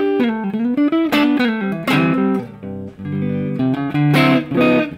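Stratocaster-style electric guitar played through a Mooer Micro Preamp Two Stones pedal on its drive channel, straight into a sound card, giving a crunchy overdriven tone. It plays single-note lines with string bends in the first second, then notes and chords, ending on a ringing chord.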